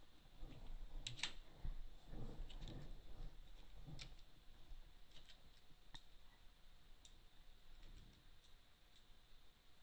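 Faint, irregular clicks of a computer mouse and keyboard, with a busier cluster in the first few seconds.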